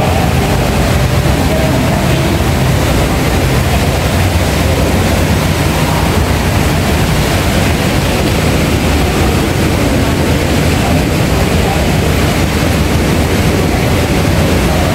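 Loud, steady rumbling background noise with indistinct voices in it.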